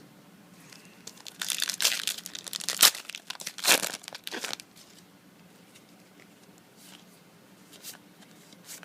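A trading-card booster pack's foil wrapper being torn open and crinkled: a burst of tearing and crackling about three seconds long, starting a little over a second in, followed by a few faint rustles.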